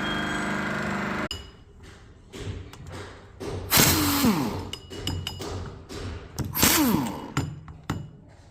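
Volvo bus air-conditioning compressor running with a rough mechanical drone, taken by the owner for bad bearings, which cuts off abruptly about a second in. Then come scattered clunks and clicks and two short, loud rushing sounds with a falling tone, about three seconds apart.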